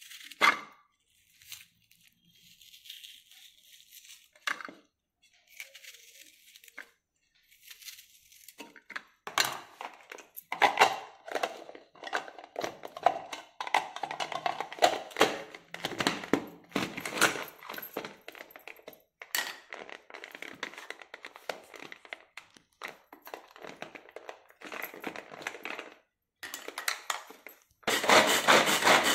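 A kitchen knife cuts onion and the pieces drop into a plastic chopper bowl: scattered clicks, taps and rustles. Near the end, a manual hand-pull vegetable chopper is worked with onion inside, giving a loud, continuous rasping rattle as its blades spin.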